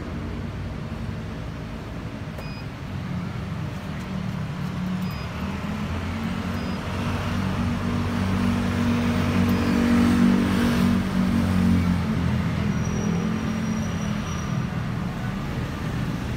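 Street traffic: a motor vehicle's engine hum grows louder to a peak about ten seconds in and then fades as it passes, over steady traffic noise.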